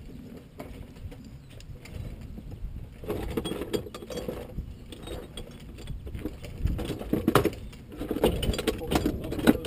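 Close handling noises right by the microphone: rustling, clinks and clicks, busier in the second half, over a low rumble of wind on the microphone.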